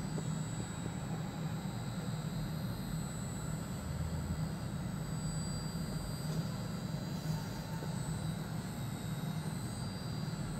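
Cummins 6BTA5.9 turbocharged, aftercooled inline-six diesel engine running steadily at a constant speed, a low, even drone.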